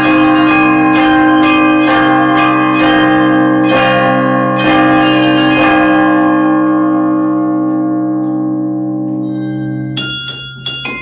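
Russian Orthodox church bells in an Easter peal, several bells struck about twice a second over a deep sustained hum. The strikes stop about six seconds in and the bells ring out, fading. Near the end, smaller, higher-pitched bells start a quick run of strikes.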